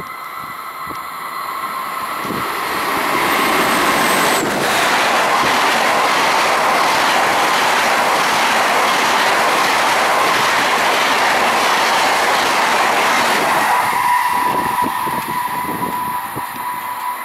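SBB double-deck passenger train passing through the station at speed without stopping: a rushing of wheels on rail and air that builds over the first few seconds, holds steady, then fades. Near the end a steady high whine comes in as the rush dies down.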